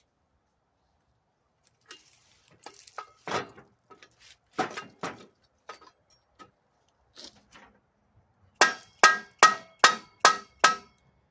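Metal parts being handled with scattered clinks and knocks, then a run of six sharp metal-on-metal hammer strikes, about two and a half a second, each with a short ring, as a go-kart part is tapped into place.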